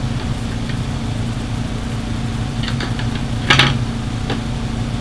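A steady low machine hum, with a few light clicks and knocks from AR-15 parts being handled. The loudest knock comes about three and a half seconds in.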